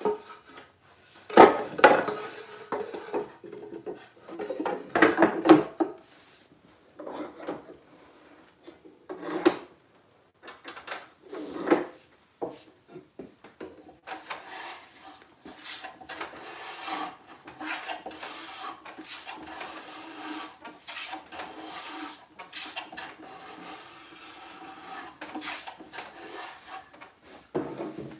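A wooden drawer knocked about as it is set into a bench vise, then a hand plane taking a quick run of short strokes along the drawer's side, shaving down the tight side so the drawer fits its opening.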